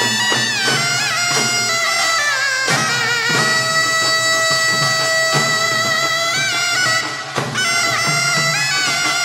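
Taepyeongso, the Korean double-reed shawm, playing a loud, ornamented melody of long held notes with bends and quick pitch turns, over sparse percussion strokes. The melody breaks off briefly about seven seconds in, then resumes.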